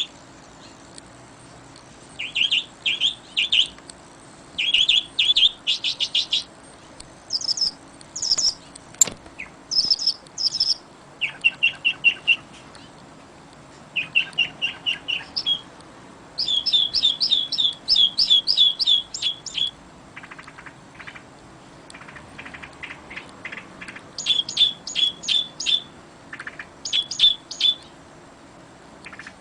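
Songbirds chirping and singing: rapid runs of short, high notes in bursts of a second or two, several different call patterns one after another, over a faint steady background.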